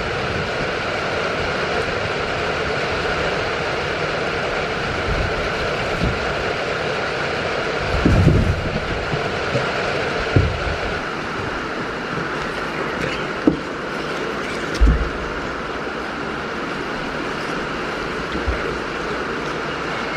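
Steady hiss of rain, with a few dull thumps.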